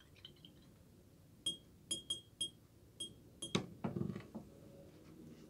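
A paintbrush tapped against the rim of a glass rinse-water jar while being cleaned: about seven quick, ringing clinks over two seconds, starting about a second and a half in. A duller knock and some rustling follow.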